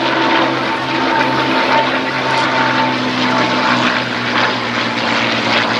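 Hispano Buchon's Rolls-Royce Merlin V12 engine and propeller droning steadily as the fighter flies past, the pitch sinking slightly in the first few seconds.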